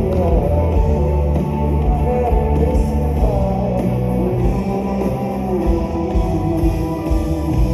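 A live band playing loud rock-style music through a concert PA, with heavy bass, drums and guitar under a male singer's voice carrying the melody.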